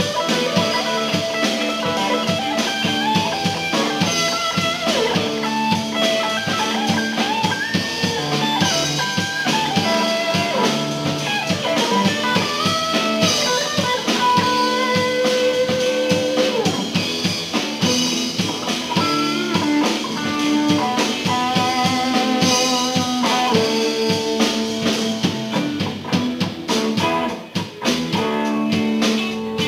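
Live blues-rock band: electric guitar playing a lead line of sustained, bent notes over a drum kit. The music dips briefly near the end.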